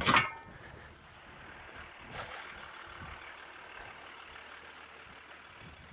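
Steady vehicle engine noise with no clear rhythm, opening with one short, loud, sharp sound.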